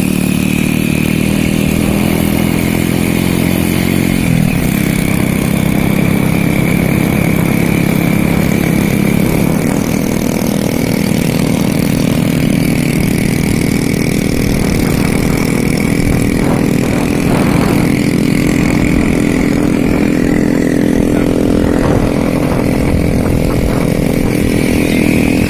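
An engine running steadily, with a small shift in its pitch about four seconds in.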